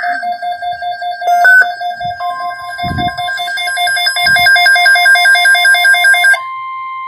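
Weather radio alert: an electronic alarm beeps rapidly, several beeps a second, and a steady 1050 Hz NOAA Weather Radio warning tone comes in about two seconds in. The beeping stops near the end and the steady tone carries on alone, announcing a new alert.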